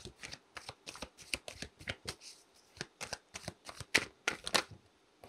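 A tarot deck being shuffled by hand: a quick, irregular run of light card clicks and flicks, which stops a little before the end.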